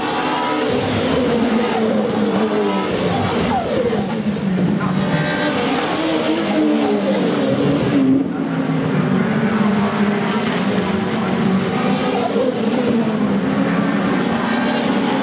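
Touring car engines racing round the circuit, several engine notes overlapping and rising and falling in pitch as the cars pass and change gear.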